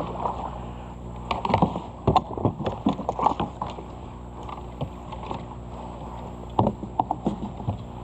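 Knocks and clunks of a paddle and gear against a kayak hull, in two clusters, with water moving around the boat.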